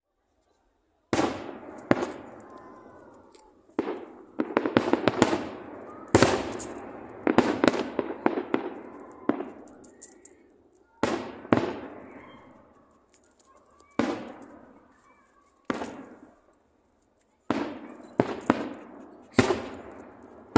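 Aerial firework shells bursting in a display: about eighteen sharp booms at irregular intervals, some in quick clusters, each trailing off in a long echoing rumble.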